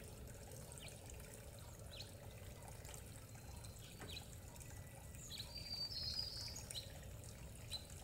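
Faint trickling of garden water fountains, with a few soft bird chirps and a short high bird song a little past the middle.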